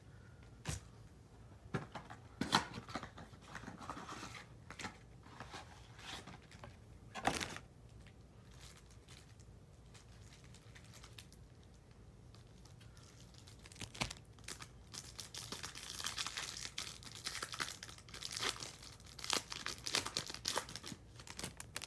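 Topps Chrome trading card pack wrapper being torn open and crinkled: scattered short tearing and rustling noises at first, a quieter stretch in the middle, then a long spell of dense crinkling near the end.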